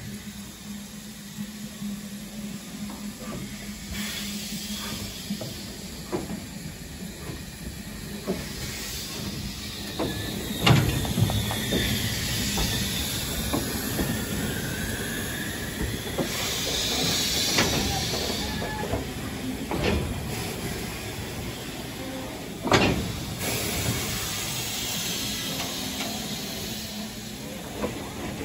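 BR Standard Class 9F 2-10-0 steam locomotive No. 92214 running slowly alongside a platform, with two spells of steam hissing and several sharp metallic clanks spread through it.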